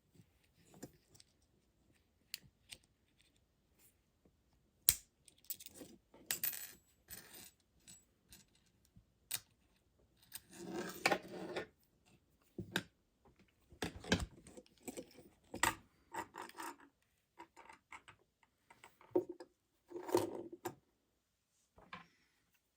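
Small plastic and metal parts of an electric shaver being pried and handled with a flat-blade screwdriver: scattered clicks, taps and short scraping sounds, with a sharp click about five seconds in.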